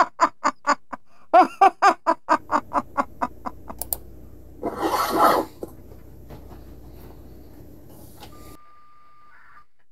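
A man laughing in a long run of quick "ha-ha" pulses that fade away. About five seconds in there is a short loud hiss, and near the end a brief steady beep.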